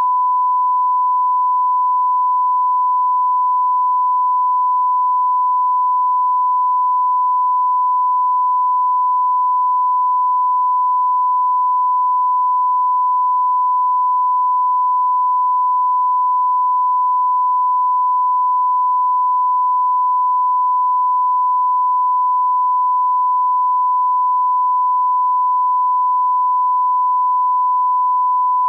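Steady 1 kHz line-up test tone: a single pure beep held at constant loudness without a break, the reference tone that goes with colour bars for setting audio levels.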